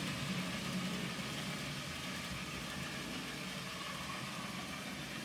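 N gauge model trains running on the layout: a steady low hum and rumble of small locomotive motors and wheels on the track.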